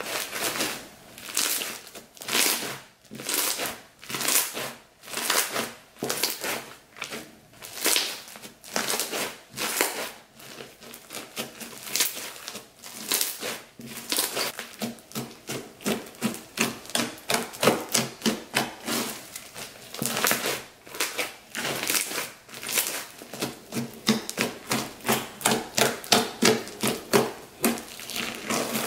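Clear slime packed with foam beads being squeezed and kneaded by hand, giving repeated crunchy crackling and popping. The squeezes come one or two a second at first, then faster and more regularly through the second half.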